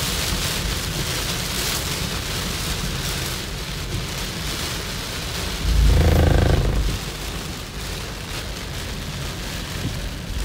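Heavy rain pelting a moving car's windshield and body, heard from inside the cabin as a steady hiss. About six seconds in, a louder low, pitched sound lasts about a second.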